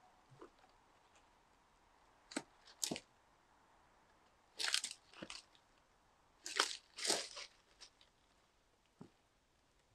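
Footsteps crunching through forest-floor litter and undergrowth: irregular steps, some in quick pairs, with gaps of a second or two between them.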